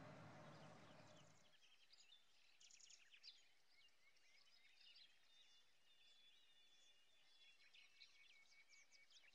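Faint outdoor hiss for the first second and a half, then faint birdsong: several small birds chirping and twittering at once, with short high whistles among the chirps.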